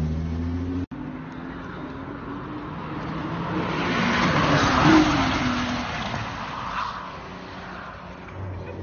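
Sports car engine running as the car moves off, the engine note and road noise building to a peak about five seconds in, then fading. The sound cuts out for an instant about a second in.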